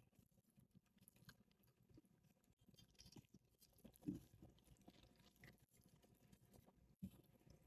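Faint chewing and the light crackle of a crisp fried taco shell being handled, with a soft low thump about four seconds in.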